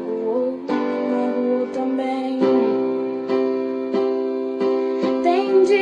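Song music with piano or keyboard chords held and changing every second or so.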